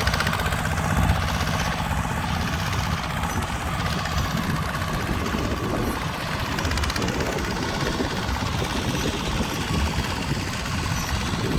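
Tractor engine running steadily, with a low, rapidly pulsing rumble.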